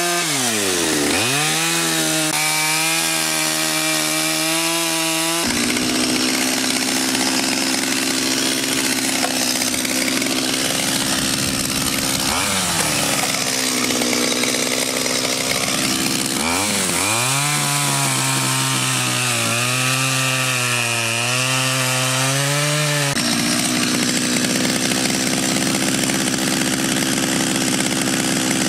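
Chainsaw cutting into wood for a long stretch. The engine's pitch sags under load and climbs back up several times, and the sound changes abruptly twice.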